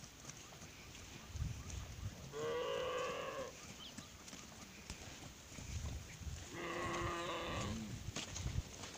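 Cattle mooing: two separate calls, each about a second long, one about two and a half seconds in and one about seven seconds in.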